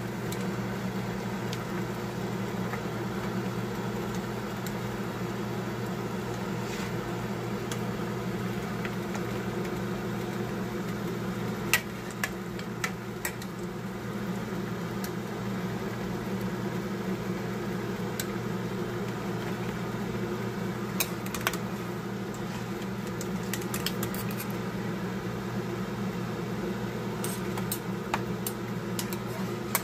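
A steady mechanical hum runs throughout, with scattered sharp clicks and taps of a metal ladle and wire strainer knocking against a pan as boiled chicken feet are scooped out; the sharpest click comes about twelve seconds in.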